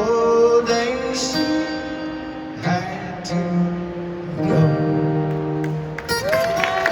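Live acoustic guitar strumming under the singer's last line, closing on a held sung note that slides up near the end as the audience's applause begins.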